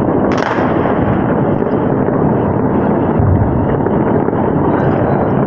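Steady rush of wind on the phone's microphone over the rumble of distant fireworks, with one sharp crack about half a second in.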